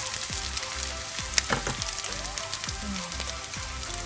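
Noodles shallow-frying in hot oil in a nonstick pan: a steady crackling sizzle, with one sharper click about a second and a half in.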